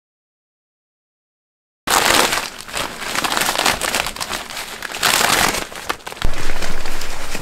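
About two seconds of silence, then a clear urethane tent window sheet being unfolded and handled, its plastic crinkling and rustling loudly in irregular bursts.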